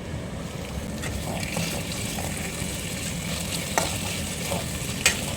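Chicken liver chukka frying in a pan and being stirred, a steady sizzle with two sharp knocks of the utensil against the pan, the louder one near the end.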